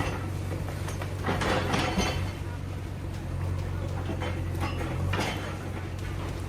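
Excavator's diesel engine running steadily, with irregular clattering and crunching of debris a few times as it works.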